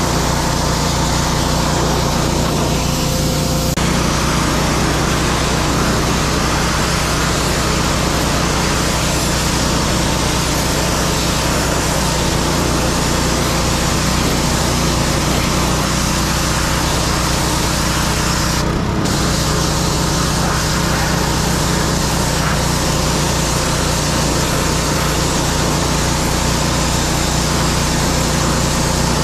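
Pressure washer running steadily: the machine's engine-like hum under the hiss of the water jet blasting the wooden deck boards.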